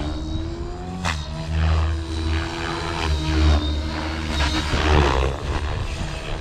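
Blade Fusion 550 electric R/C helicopter flying: its motor and rotor blades whine, the pitch rising and falling as it manoeuvres. There is a sharp click about a second in.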